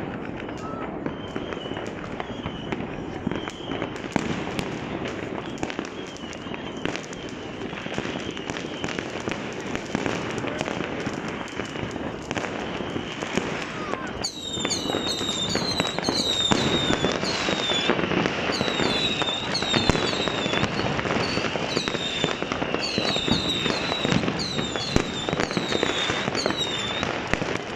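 Fireworks going off: a dense, continuous rattle of bangs and crackles, with people's voices mixed in. From about halfway, rapid high whistling chirps sound over the crackle, a couple a second.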